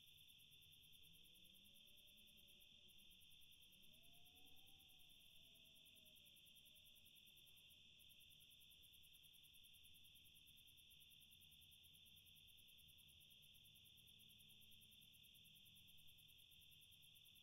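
Near silence with a faint, steady chirring of crickets, a night ambience; a faint wavering tone rises and falls in the first several seconds.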